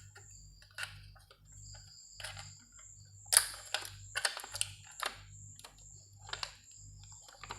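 Scattered light clicks and taps at uneven intervals, the loudest about three and a half seconds in, as a 2.5-inch SSD is handled and seated in the laptop's drive bracket.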